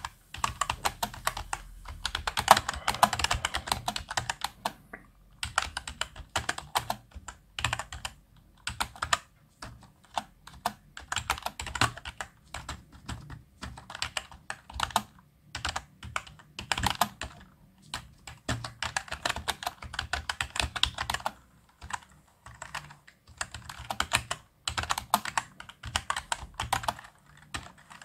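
Touch typing on a computer keyboard: a quick, uneven patter of key clicks in runs of words, broken now and then by short pauses of about a second.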